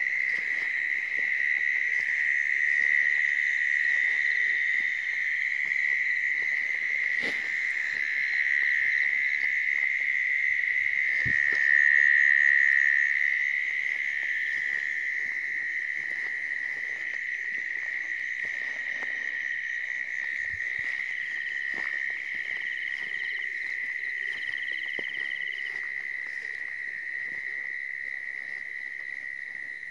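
Crickets trilling in one steady, high-pitched, unbroken chorus, loudest about twelve seconds in.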